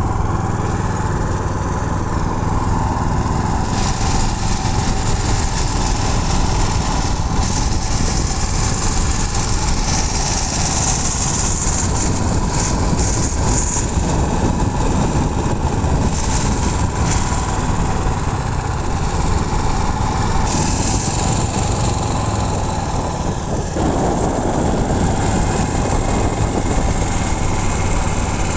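Small generator engine on a motorized bicycle, running steadily throughout.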